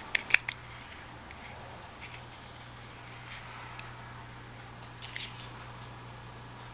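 A few sharp clicks of small plastic and metal parts being handled, then faint ticks and a brief rustle about five seconds in, as a small spacer is fitted onto a hand-crank generator's motor shaft, over a faint steady low hum.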